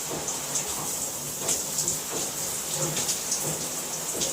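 Shower water running: a steady spray splashing, with small irregular spatters.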